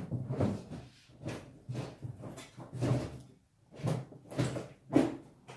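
A metal-cutting saw blade worked by hand against the steel mower deck, making a run of uneven rasping, clattering strokes about two a second.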